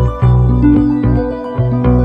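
Instrumental background music: held low bass notes changing about every half second, with short melodic notes above.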